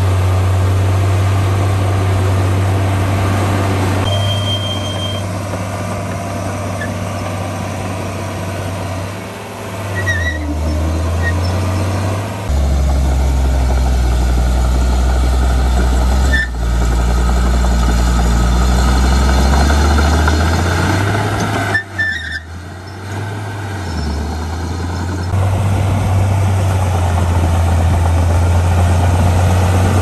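Heavy diesel engine of earthmoving machinery running under changing load. Its low drone drops in pitch about ten to twelve seconds in and climbs back around twenty seconds, with two brief breaks in the sound and a short high beep about four seconds in.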